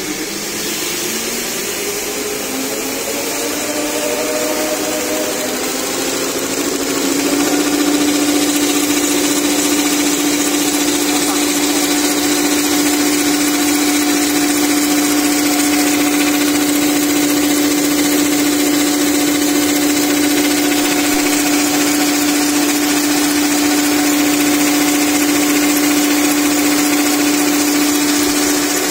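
Automatic paper straw packing machine running with a steady mechanical hum and whir. A tone rises over the first several seconds and then holds as a steady whine from about seven seconds in.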